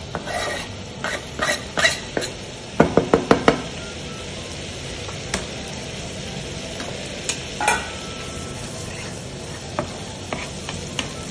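Onion and garlic in butter and olive oil, deglazed with water, sizzling steadily in a frying pan as chopped parsley is scraped in from a plastic cutting board with a knife. A quick run of about five sharp taps comes about three seconds in, with a few single clicks later, as the knife and board knock together.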